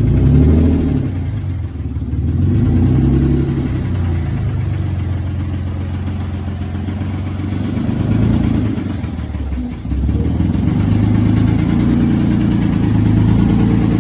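A 1991 Nissan 300ZX's V6 engine running loudly through its old exhaust, whose pipe is broken apart at the resonator. The revs step up and down several times, with dips about two seconds in and again near ten seconds.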